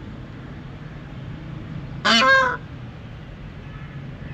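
A peafowl gives a single loud call about two seconds in, lasting about half a second.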